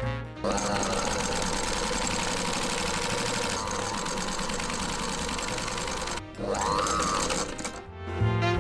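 Vintage Kayser sewing machine driven by a retrofitted electric motor and belt, stitching fabric. The motor's whine rises as it speeds up, then holds steady under the fast clatter of the needle mechanism for about six seconds. It stops briefly, then gives one short second run that speeds up and slows down.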